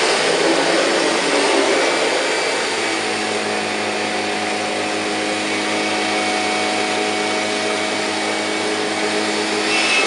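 1999 Kirby G5 upright vacuum cleaner running on carpet. From about three seconds in it settles into a steadier, even hum, then gets louder again near the end.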